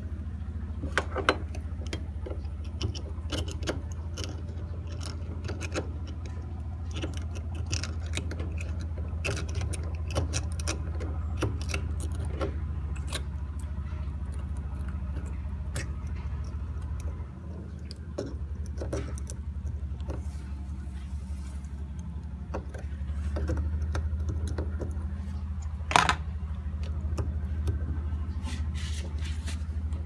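Scattered small clicks and knocks of hands refitting the cleaned water inlet filter and hose on a Samsung washing machine, with one sharper knock near the end, over a steady low hum.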